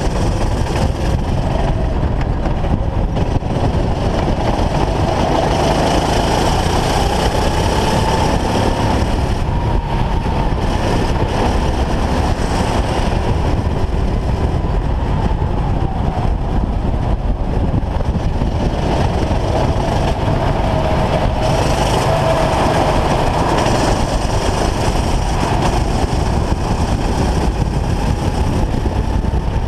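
Racing go-kart engine running hard, heard from the driver's seat, its pitch rising and falling as the kart accelerates and slows through the corners.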